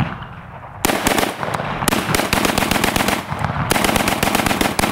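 A Palmetto State Armory AK pistol in 7.62x39 being bump-fired: after a short pause near the start, long strings of rapid shots at about ten a second, with a brief break a little past three seconds in.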